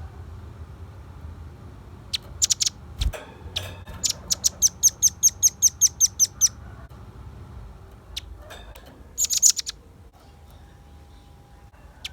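Velvet-fronted nuthatch calling in sharp, high chips: a few scattered notes, then a fast run of about fifteen evenly spaced notes over some two and a half seconds, and another quick burst later on. A single low thump about three seconds in.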